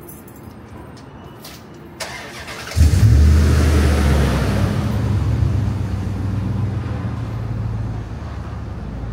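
A motor vehicle's engine nearby starts up suddenly about three seconds in, after a click, and runs loudly with a low rumble that eases off gradually.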